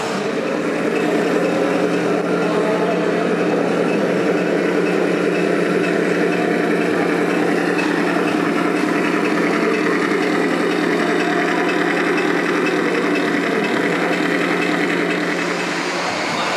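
Radio-controlled model vehicle running steadily: a constant motor hum with several held tones over a busy drivetrain rattle, easing slightly near the end.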